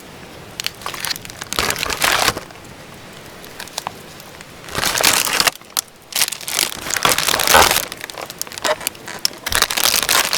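Irregular bursts of crinkling and crackling rustle with scattered sharp clicks, as of something being handled, crumpled or broken up.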